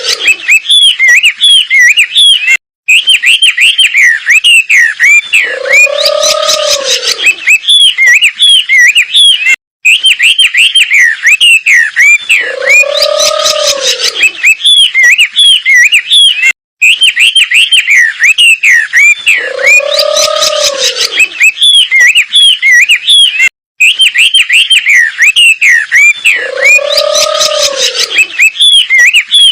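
Recorded song of a wambi bird played as a looped training track: a fast, unbroken run of sharp chirps and whistles, each cycle led by a lower arched note. The phrase repeats about every seven seconds, with a short silent gap where the loop restarts.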